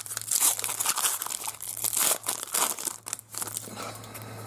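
Trading cards and their foil pack wrappers being handled: irregular crinkling and rustling with quick flicks of card against card, over a faint steady low hum. The handling thins out near the end.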